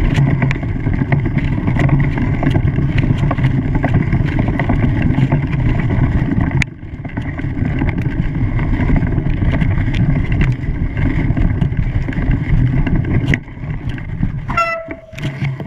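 An engine running steadily under a rough, wind-like rush, broken twice by sharp, brief drops. Near the end there is a short high call.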